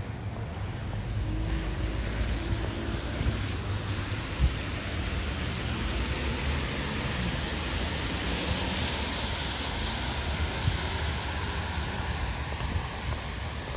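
Road traffic on a rain-wet street: a low rumble of vehicles under the hiss of tyres on wet pavement, which swells through the middle as a vehicle passes and then eases off.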